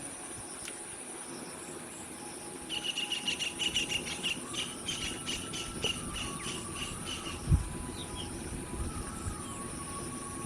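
Outdoor ambience of a steady high-pitched insect drone, with a run of rapid chirps for a few seconds from about three seconds in and a single low thump a little after seven seconds.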